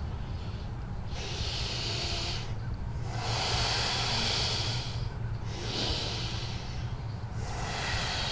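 A person taking slow, deep breaths in and out to calm down, about four long breathy swells.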